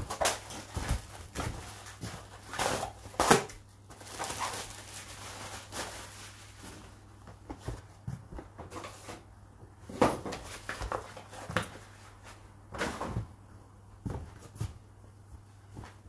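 Whirlpool WFO3P33DLXUK dishwasher washing: irregular splashes and knocks of water thrown around inside the tub, over a steady low hum from the machine.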